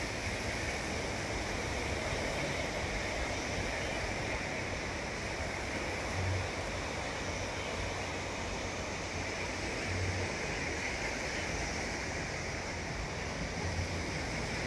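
Steady wash of sea surf breaking on the shore, with a few brief low thuds.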